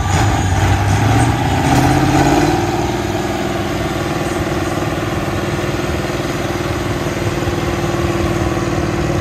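Vintage farm tractor engine revving up as it pulls against the weight sled, its pitch rising over the first two seconds or so, then running at a steady pitch, a little quieter, for the rest.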